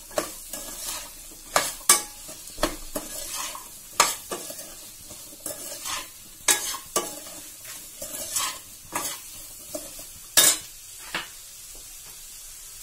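A steel ladle stirring Indian gooseberry, green chilli and ginger pieces around a non-stick kadai, irregular clinks and scrapes against the pan over the sizzle of the hot oil and spices. The loudest clink comes about ten seconds in, and the stirring stops soon after, leaving only the sizzle.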